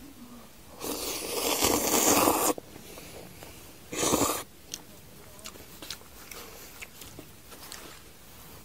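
Instant black-bean-sauce noodles slurped up off chopsticks: one long slurp that grows louder, then a short second slurp about four seconds in, followed by faint chewing and small clicks.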